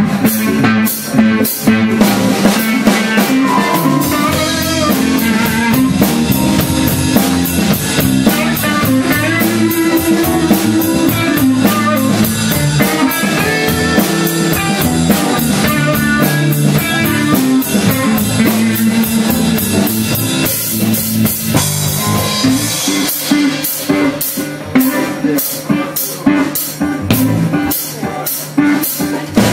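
A blues band playing an instrumental stretch live, without vocals: electric guitar, bass guitar and drum kit, with the drums hitting harder again after about twenty seconds.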